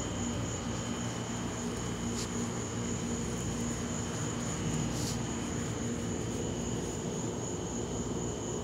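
Crickets trilling steadily in a high, thin continuous chirr, over a constant low mechanical hum. Two short sharp noises break in, about two and five seconds in.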